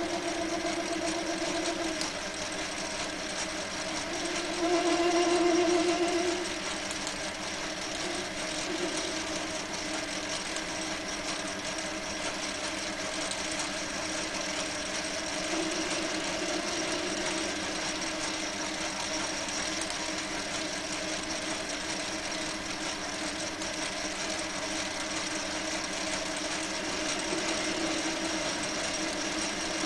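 Small metal lathe running steadily, turning a metal workpiece with a carbide indexable insert, with a steady motor and gear hum and a high whine. The sound swells for about two seconds around five seconds in and rises more mildly a few times later.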